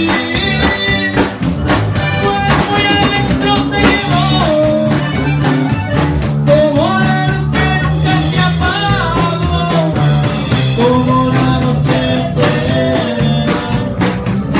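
Live band playing a rock song: drum kit, electric guitars and a lead melody line that bends in pitch.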